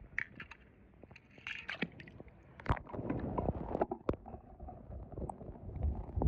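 Muffled underwater gurgling and sloshing of pool water around a submerged microphone, a low rumble broken by a few sharp clicks and knocks.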